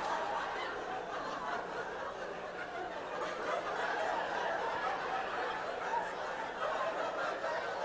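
Audience laughter, steady for several seconds in response to a punchline.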